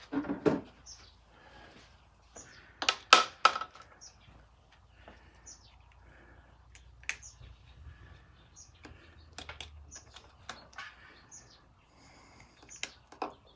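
Hand tools and small metal parts clicking and clinking during spark plug work on an outboard motor, with a few sharper knocks about three seconds in and scattered light clicks after.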